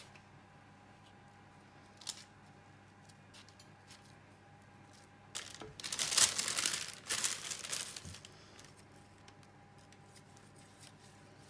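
Baking paper crinkling and rustling while a knife cuts into a soft meringue cake roll. It comes as a cluster of scrapes and crackles a little under halfway through and lasts about three seconds. The rest is quiet, with one short click about two seconds in.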